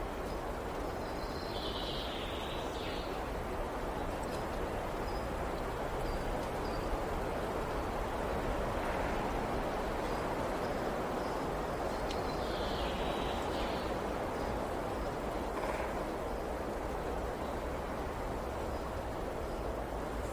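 Steady rush of a flowing river. A bird calls over it twice, about a second in and again about twelve seconds in, with faint short high chirps in between.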